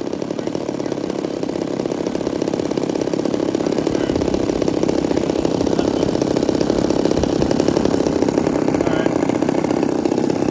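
Small two-stroke gasoline engine of an RC Cessna 337 model running on the ground with a rapid, even firing. It grows louder over the first several seconds, then holds steady.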